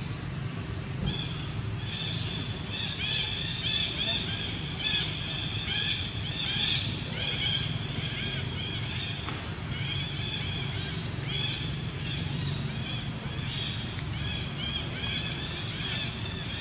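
High, short chirping animal calls repeated several times a second in clusters, starting about a second in, over a steady low hum.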